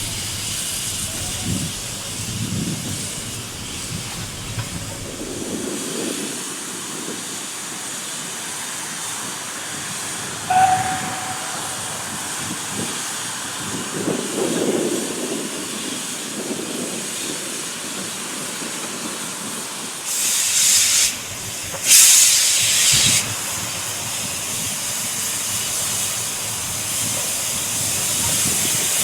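Steam locomotive hissing steadily, with two loud, second-long bursts of escaping steam about two-thirds of the way through. A brief tone sounds about a third of the way in.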